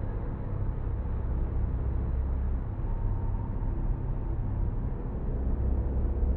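Sci-fi UFO sound effect: a steady, low drone with a few faint held tones above it, one near the top that swells slightly about three seconds in.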